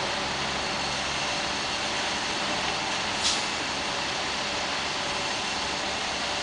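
Steady running of a heavy construction machine's engine, with one short, high hiss a little over three seconds in.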